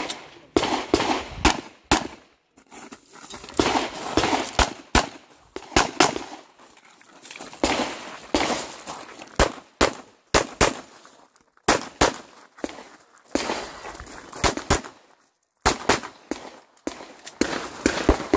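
9mm Glock 34 pistol firing a stage of rapid shots in quick pairs and short strings, with short pauses between groups as the shooter moves between positions.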